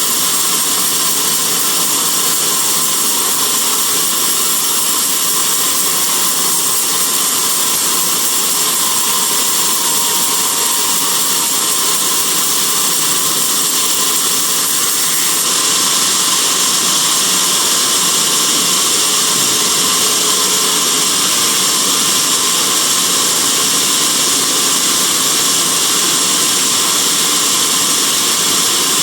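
Sawmill band saw running steadily as it cuts through a teak log, getting a little louder about halfway through.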